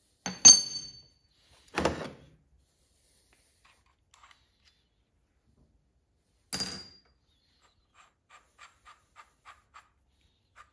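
A steel plate clanks down onto a cast-iron vise with a bright ringing note, followed by a duller knock; another ringing metal clank comes about six and a half seconds in as a second steel piece is set down. Near the end, a run of light, evenly spaced clicks, about four a second, from the pawl of a hand-made ratchet wrench being worked.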